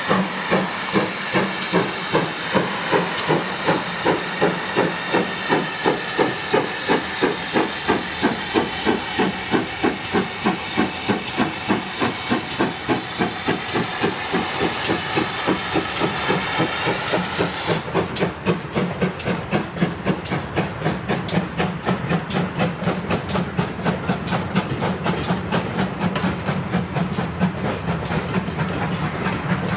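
GWR Manor class two-cylinder steam locomotive pulling away with a train, its exhaust beats steady and quickening as it gathers speed over a strong steam hiss. The hiss cuts off about two-thirds of the way through, leaving faster beats and the rumble of the train.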